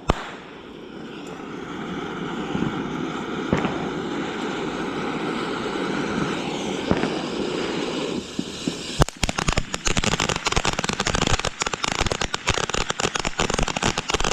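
Consumer fireworks going off: a sharp pop at the start, then a steady rushing hiss for about nine seconds, then dense, rapid crackling to the end.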